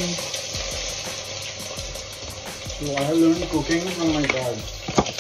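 Chopped onions frying in very hot cooking oil, sizzling steadily. A voice is heard briefly a few seconds in, and there is a sharp knock near the end.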